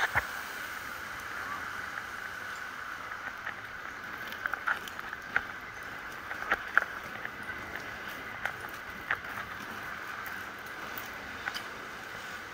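A bicycle riding along, heard through a camera mounted on it: a steady rushing noise with scattered sharp clicks and rattles from bumps.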